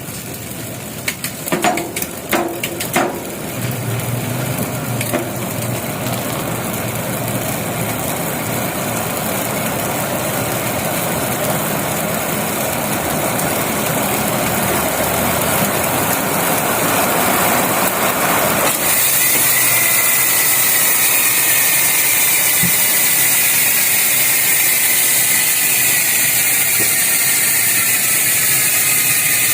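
GUB bicycle hub freewheeling, its pawls clicking so fast they make a continuous buzz. A few sharp clicks early on; about two-thirds through the buzz gets louder and brighter, then slowly falls in pitch as the wheel slows.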